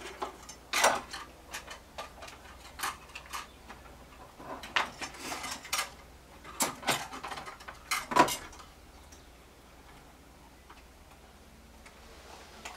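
Irregular clicks and light plastic knocks of wire connectors being pulled off an old spotlight receiver and pressed onto a new one, with small handling noises between. The loudest clicks come about a second in and again about 8 seconds in, and the clicking stops shortly after.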